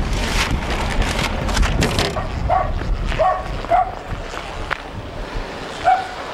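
A dog barking, four short barks from about two and a half seconds in, over a low rumble that is loudest in the first two seconds.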